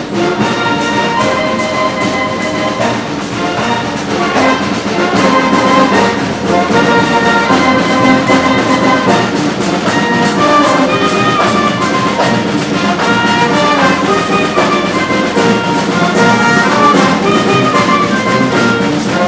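Brass band playing a lively tune with a steady beat, trumpets and trombones over a tuba.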